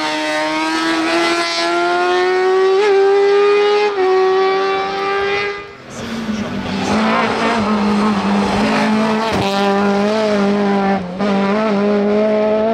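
Race car engines at high revs: a kart-cross buggy's engine revving, its pitch climbing slowly for about six seconds, then after a short dip a second race car's engine held at high revs at a lower pitch.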